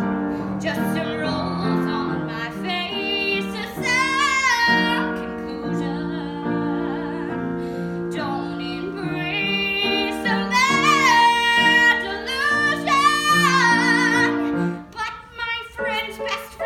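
A woman singing a comic song over piano accompaniment, holding long high notes with vibrato about four seconds in and again from about ten seconds in; the music thins out near the end.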